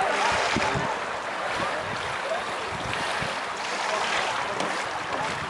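Wind buffeting the microphone over a steady hiss of water and paddling from kayaks in a canoe polo game, with faint distant shouts from the players.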